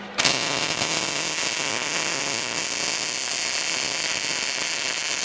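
MIG (wire-feed) welder's arc running one continuous weld of about five seconds, joining a hex nut to a round steel disc. It makes a steady hiss that starts abruptly and cuts off sharply at the end.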